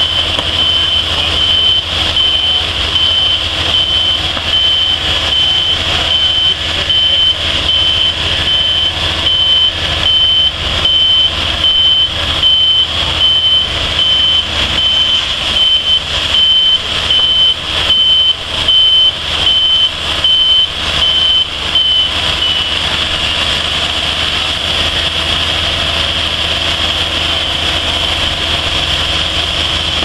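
Wood-Mizer LT40 portable band sawmill running, its band blade sawing through a poplar log with a steady high whine. The whine dips and stops about two-thirds of the way through as the cut finishes, and the engine keeps running.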